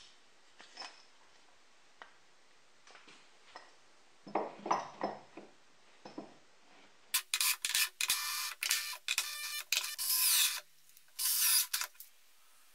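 A few light wooden knocks and clicks as a plywood saw fence is handled on the table, then a run of loud hissing bursts from a squeeze bottle of wood glue being squirted, with one last burst near the end.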